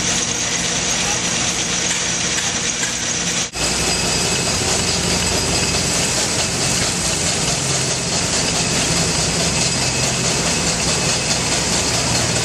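Steady running machinery, engines and machines at work, with some steady tones in it. The sound breaks off for a moment about three and a half seconds in and carries on with a slightly different mix.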